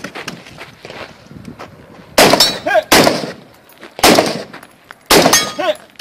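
Colt LE6920 5.56 mm AR-15 carbine with a PWS muzzle brake fired in a string of four rifle shots, starting about two seconds in and roughly a second apart, with a fifth right at the end. About half a second after some of the shots, a short ring comes back from a steel target being hit.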